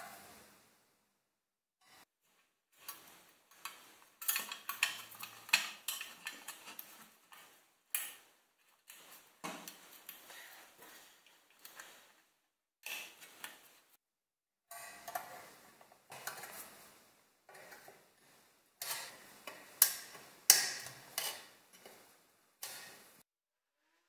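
Sheet-metal parts of an old fan heater's frame clinking, tapping and scraping against each other and a screwdriver as they are handled and screwed together. The clicks and rattles come in spells with short pauses between them, loudest towards the end.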